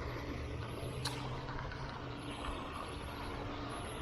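Light rain pattering on a rain jacket, an even hiss, over a steady low hum, with a single click about a second in.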